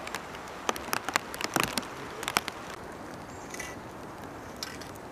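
Scattered sharp ticks and crackles over a steady hiss, thickest in the first two and a half seconds, then thinning out; a brief faint high chirp a little past halfway.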